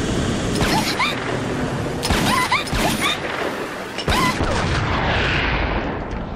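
Sound effects from an anime scene: several sharp impacts about a second apart, mixed with short rising chirps, then a rushing whoosh near the end.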